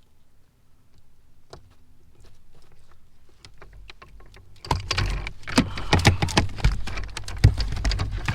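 Handling on a plastic kayak: faint scattered clicks at first, then a little over halfway in a dense, loud flurry of knocks, rattles and thumps.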